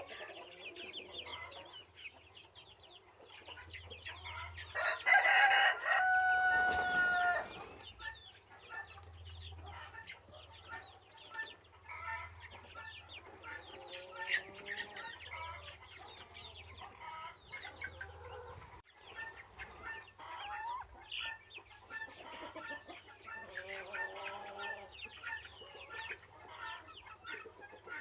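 Chickens clucking and calling in a farmyard, with a rooster crowing loudly once about five seconds in.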